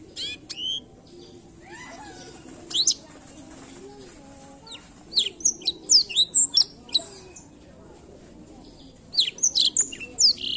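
Blackthroat (black-throated canary) singing in bursts of quick, sharp, down-slurred whistles and chirps: a short phrase at the start, a dense run in the middle and another near the end.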